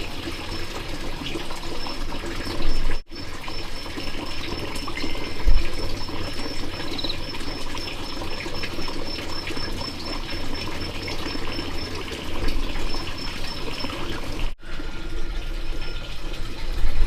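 Steady running water, with two brief breaks where the sound cuts out.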